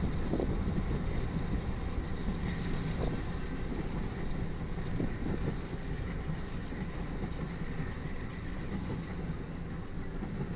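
Double-stack container cars of a freight train rolling past: a steady rumble of steel wheels on the rails.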